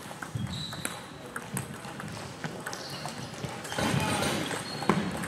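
Table tennis rally: the ball knocking back and forth off the bats and the table in irregular sharp clicks, with a louder, noisier stretch about four seconds in.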